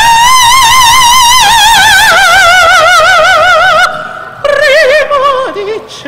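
Operatic soprano with piano accompaniment, holding a high note with wide vibrato for about four seconds as the pitch slowly sinks. After a brief break she sings a shorter, lower phrase that falls away near the end.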